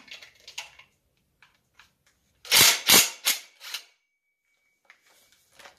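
Cordless DeWalt driver with a socket on an extension undoing the nuts on an engine's stator side cover: a burst of about five loud, sharp clacks about two and a half seconds in, with lighter metallic clicks before and after.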